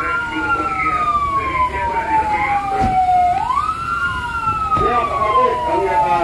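Siren of a red rescue pickup truck wailing in repeating cycles. Each cycle jumps quickly up in pitch and then falls slowly for about three seconds; a new rise comes about three seconds in.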